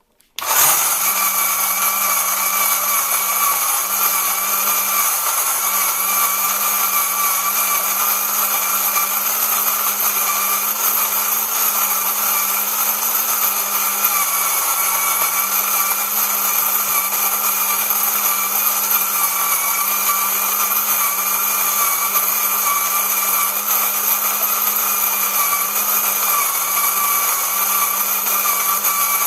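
Braun KMM1 electric burr coffee grinder switched on about half a second in and running steadily, its motor giving a constant whine over a grinding hiss.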